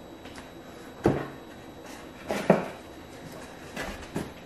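Stacks of paper flash cards knocked down onto a table and handled in a cardboard box: a sharp knock about a second in, two more around two and a half seconds, and lighter taps near the end.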